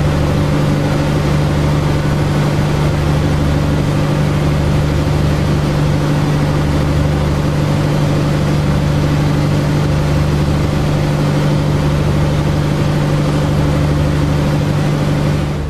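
Boat engine running steadily at constant speed, a hum that holds one pitch throughout.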